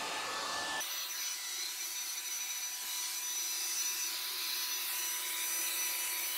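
Handheld hair dryer running steadily, blowing air over a wet stone countertop to dry it; a thin high whine sits over the rush of air.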